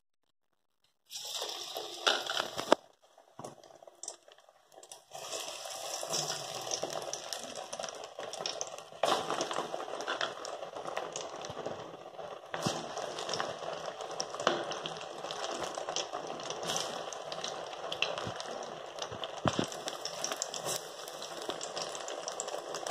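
Paruppu vadai (chana dal fritters) deep-frying in hot oil: a crackling sizzle with many small pops. It starts about a second in, comes in patches for a few seconds, then runs on continuously.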